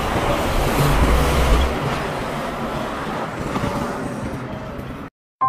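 Street traffic with a city bus passing: a low engine rumble that is strongest about a second in and slowly fades, then cuts off suddenly near the end.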